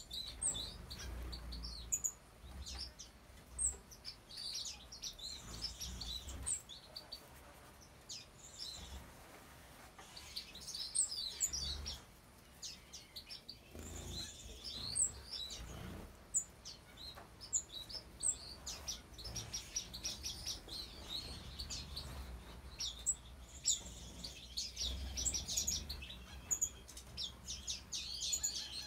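A mixed flock of small exotic aviary finches chirping, with many short high calls overlapping throughout.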